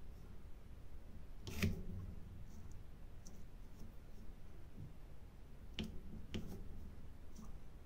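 Small sharp clicks and taps of a diamond-painting pen placing resin drills on the sticky canvas: a loud one about a second and a half in, two more around six seconds in, and fainter ticks between.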